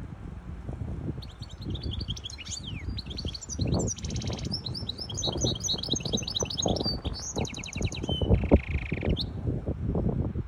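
Hybrid goldfinch (goldfinch × canary mule) singing a varied song of quick chirping notes and rapid trills, starting about a second in and ending in a lower buzzy trill about nine seconds in.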